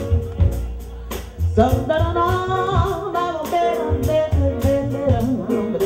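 Live jazz-funk band playing: drum kit keeping a steady beat under bass and keyboard, with a melodic lead line wandering above.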